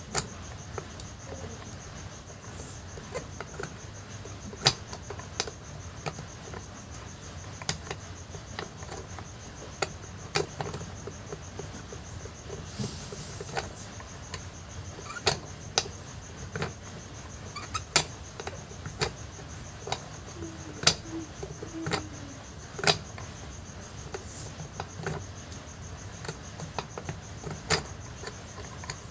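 Irregular sharp clicks and taps, one every second or two, from the small plastic and metal parts of an old water pump being handled as a wire contact is fitted into its plastic housing. Under them runs a steady, high-pitched pulsing in the background.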